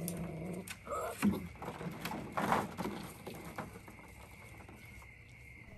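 Golden retriever puppies rooting about in a kiddie-pool ball pit: light clicks and rustles of the plastic balls, with short puppy calls near the start and about a second in. A steady high drone, typical of night insects, runs underneath.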